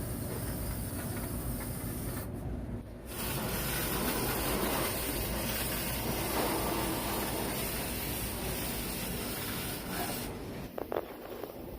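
Steam cleaner jetting steam with a steady hiss, breaking off briefly a couple of seconds in and then running louder until shortly before the end.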